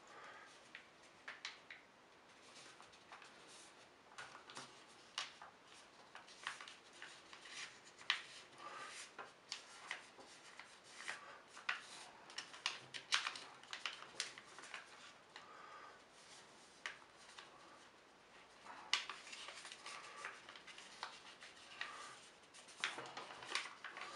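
A sheet of paper being folded and creased by hand on a tabletop: irregular rustling with many short crackles as the folds are pressed down.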